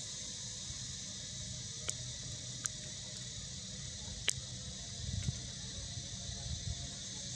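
Steady high-pitched insect chorus over a low rumble, with three sharp clicks between about two and four seconds in.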